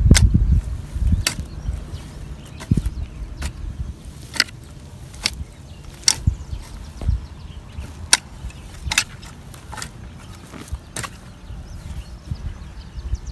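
A hoe and a garden fork working lumpy, stony soil in a planting hole: dull thuds at first, then sharp strikes of the tool on clods and stones about once a second.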